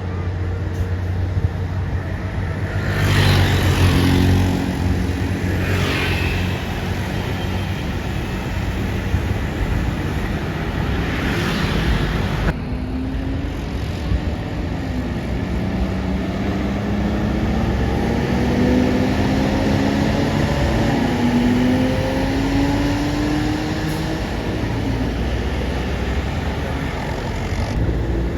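Road traffic passing steadily, with a heavy vehicle's engine accelerating away, its pitch climbing and dropping back several times as it shifts up through the gears.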